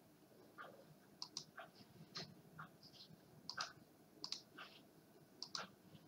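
Faint computer mouse clicks, a dozen or so at an uneven pace, as contours are selected in CAM software.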